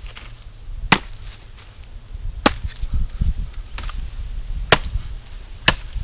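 Machete chopping into a stick of hard wood: four sharp chops, unevenly spaced.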